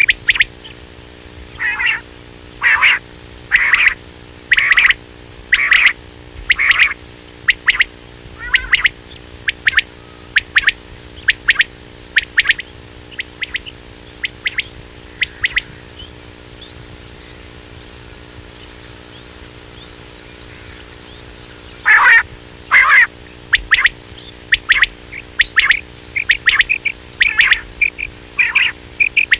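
Quail calls played as a hunting lure: short sharp calls repeated about once a second. They pause for several seconds in the middle, leaving a faint high steady trill, then start again, coming faster near the end.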